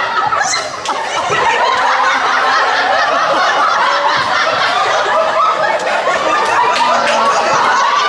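Audience laughing and chuckling, many voices overlapping at once.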